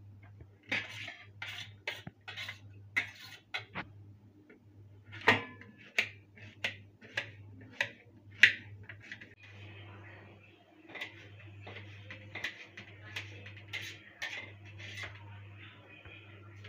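Kitchen knife chopping onion on a stainless steel plate: sharp, irregular taps of the blade striking the metal, turning into a quicker run of lighter taps and scrapes about halfway through. A low steady hum runs underneath.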